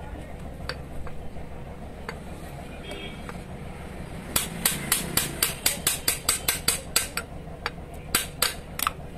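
Rapid metal-on-metal tapping, about four sharp strikes a second, as a hand tool works on a dismantled starter motor's field-coil housing. The strikes start about four seconds in and pause briefly near the end.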